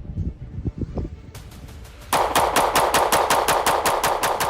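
Rapid gunfire: a fast, even string of shots at about nine a second, starting about two seconds in and lasting nearly three seconds. A few low thumps and clicks come before it.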